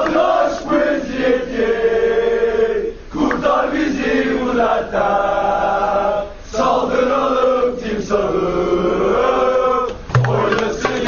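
Bursaspor football supporters' terrace chant: a large crowd singing long drawn-out notes in unison, in about three phrases with short breaks between them. Low beats come back in near the end.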